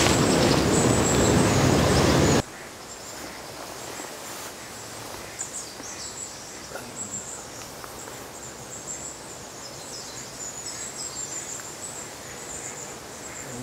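A loud, steady rushing noise that cuts off abruptly about two seconds in. After it comes a quiet outdoor background of small birds chirping and a faint high insect buzz.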